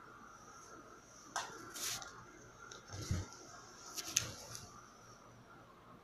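Two cats, a Sphynx and a tabby kitten, scuffling on a bed: scattered rustles of the bedsheet and a few soft thumps, the loudest about four seconds in.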